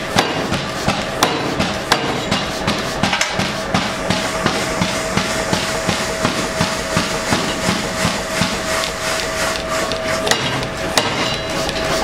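Power hammer striking bar stock held in a swage die, a steady run of rapid blows at about three to four a second, over a steady hum.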